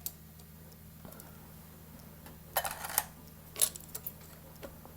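Light clicks and taps of small soldering tools against a circuit board while flux is dabbed onto a bridged pin: a quick cluster about two and a half to three seconds in, then a few single ticks near the end.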